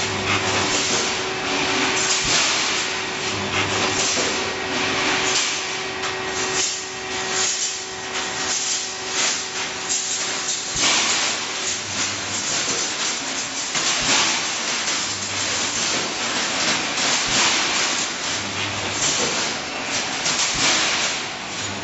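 Automatic rebar mesh welding machine running: a steady hiss with frequent clanks and knocks, and a brief low hum about every three and a half seconds as it cycles.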